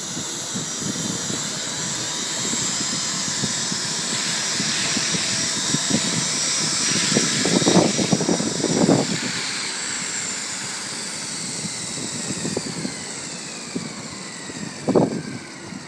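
JR NEX E6 radio-controlled helicopter's rotor and drive whining in a low hover, getting louder to a peak about halfway with a few gusty bursts of rotor wash. After landing the rotor spools down with a falling whine.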